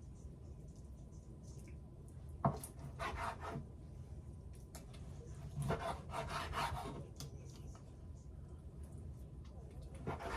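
Knife scraping and cutting on a wooden cutting board in three short bouts, with one sharp knock about two and a half seconds in, as fat is trimmed off raw chicken breast.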